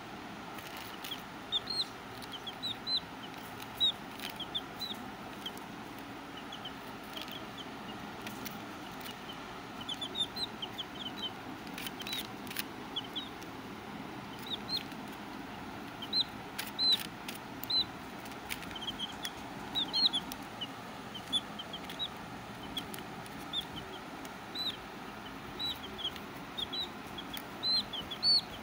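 Baby chicks peeping: many short, high chirps that rise and fall, coming in scattered runs, over a steady background noise. A few sharp clicks stand out now and then.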